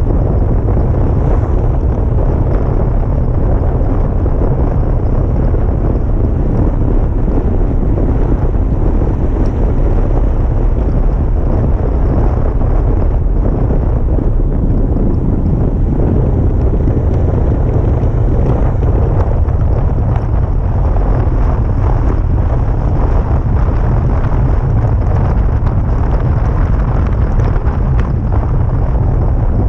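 Steady, loud rushing noise with a deep rumble and no break, typical of wind buffeting the microphone.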